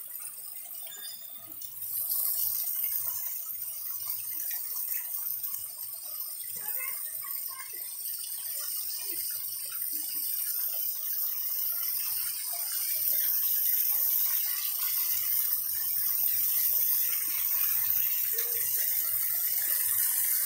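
Water gushing steadily from the row of Muktinath's 108 spouts and splashing onto the stone floor, a steady hiss that gets louder about two seconds in.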